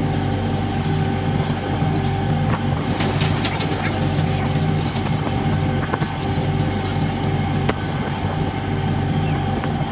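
Fishing boat's engine and deck machinery running with a steady drone and a thin steady whine above it, with a few light knocks of gear on deck.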